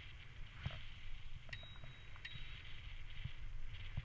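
Bicycle rolling along a wet towpath, heard through a bike-mounted action camera: a steady low rumble of tyres and ride noise with small knocks from bumps in the path. About a second and a half in come two short high pings, under a second apart, joined by a thin high tone.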